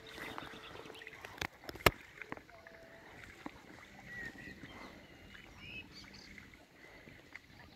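Kayak paddling on calm water: quiet splashes and drips of a paddle, with two sharp knocks about a second and a half and two seconds in, and a few faint high chirps.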